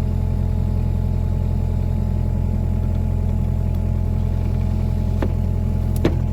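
Mini excavator's diesel engine running steadily at a constant speed, with a sharp click about five seconds in and a few knocks near the end.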